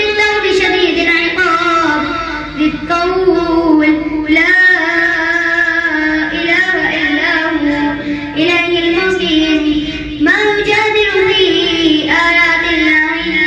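A boy's voice reciting in a sung, melodic style into a microphone, with long held, ornamented notes and short pauses for breath. There is no instrumental accompaniment.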